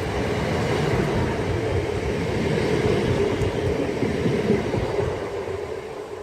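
Hull Trains Class 180 Adelante diesel multiple unit passing through the station, with the steady noise of its wheels and engines easing off near the end as it draws away.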